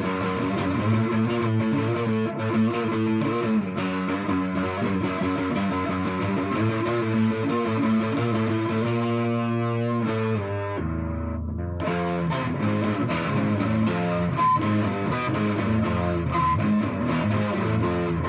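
Modded solid-body electric 12-string guitar, strung in octave pairs, played through an amp: a run of octave riffs with a chorus-like shimmer and warble from the paired strings. About nine seconds in, one chord is left ringing and dies away, and then the riffing starts again.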